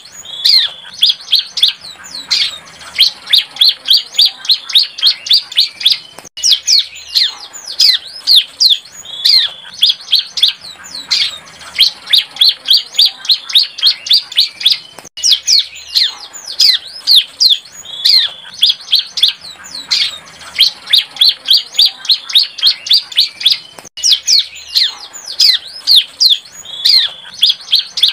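Young bar-winged prinia (ciblek) singing. It gives rapid, continuous strings of high, sharp chirps mixed with quick downward-sweeping notes, the fast 'nembak' volleys of a bird still learning its song. The song has brief breaks about every nine seconds.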